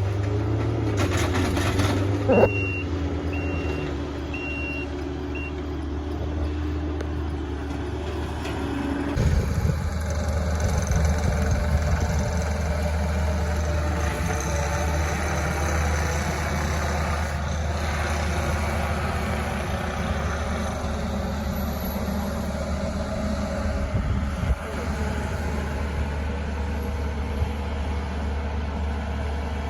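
Diesel engine of heavy work machinery running steadily, with a backup alarm beeping four times a few seconds in as the machine reverses.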